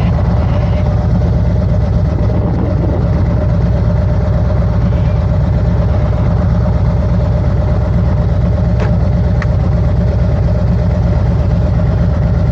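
Harley-Davidson Road Glide's V-twin engine running steadily, a low, even drone with no changes in speed.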